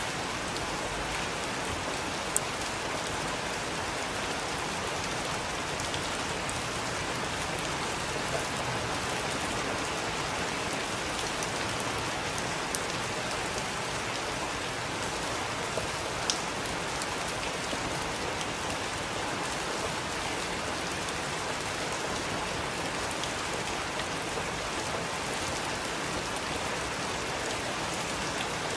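Heavy rain falling steadily, an even hiss of many drops, with a few sharper single drop hits standing out now and then.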